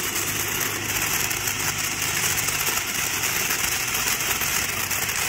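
Boom Wow Neon Fish firework fountain burning, a steady, even hiss of spraying sparks.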